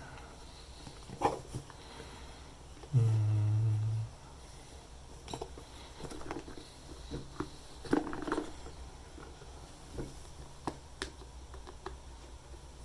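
Webcam box and packaging being opened and handled: scattered knocks, clicks and rustles of cardboard and packing, louder around a second in and again near eight seconds. About three seconds in, a steady low hum lasts about a second.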